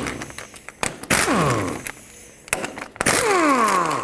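Pneumatic impact wrench spinning 19 mm axle flange bolts out of the rear hub in short bursts, about a second in and again near the end. After each burst its air motor whines down in pitch. Sharp clicks fall between the bursts.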